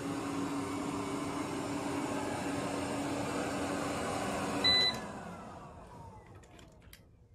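eufy robot vacuum running on carpet with a steady motor hum. About three-quarters of the way through it gives a short beep, then its motor winds down, falling in pitch and fading out.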